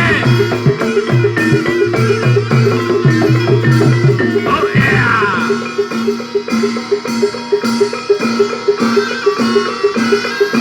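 Live Javanese barongan accompaniment music: drum strokes and evenly repeating struck gong-chime notes in a steady rhythm, with a brief sliding high tone about five seconds in.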